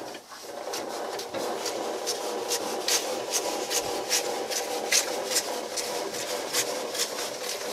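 The M24 Chaffee's 75 mm gun being elevated by hand through its manual elevation gear, with the turret unpowered. The gearing makes a steady grinding rasp with regular clicks, two or three a second.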